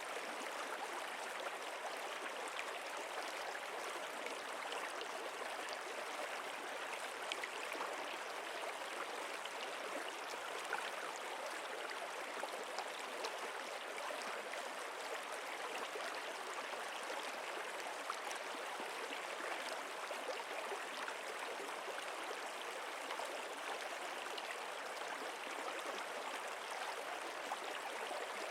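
Water flowing steadily in a stream, an even rushing with small scattered splashes and trickles.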